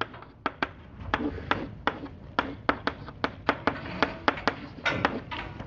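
Chalk striking and scraping on a blackboard as a word is written: a quick, irregular run of sharp taps, about three or four a second.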